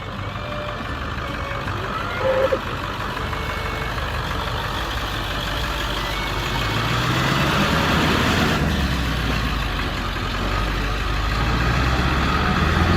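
Engine of a chained-up four-wheel-drive vehicle working under load through deep mud, the engine note climbing and getting louder about halfway through.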